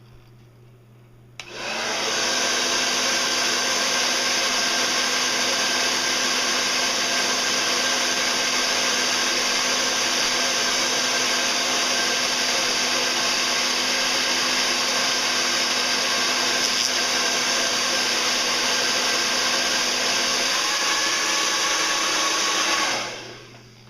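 Hair dryer switched on, blowing at a steady loud rush of air for about twenty seconds, then switched off and winding down near the end.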